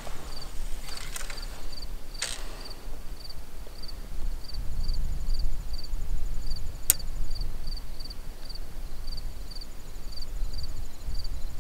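An insect chirping steadily at about three high chirps a second over low wind rumble on the microphone, with a few sharp clicks: a louder one about two seconds in and a thin one near the middle.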